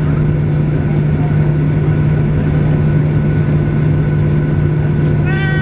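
Steady cabin drone of a Boeing 737-800 with its CFM56 engines running before takeoff: a loud low hum with a thin steady whine above it. A voice starts briefly near the end.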